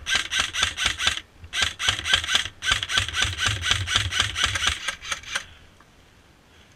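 Airsoft gun firing in three rapid strings of sharp shots, about six or seven a second, with short pauses between strings; the firing stops about five and a half seconds in.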